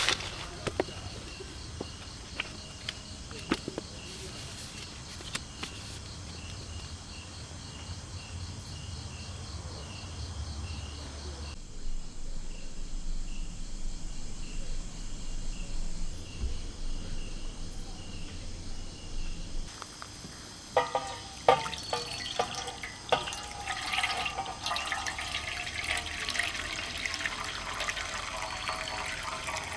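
Outdoor ambience with a faint, rapidly pulsing insect-like chirp, broken by edit cuts. In the last third, water sloshes and pours with light clicks and knocks against a container.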